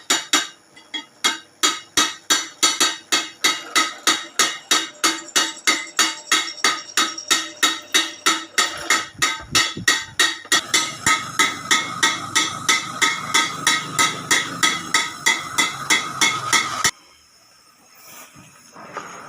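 A hammer striking metal in a fast, even rhythm of about three to four blows a second, each blow ringing; the hammering cuts off suddenly near the end.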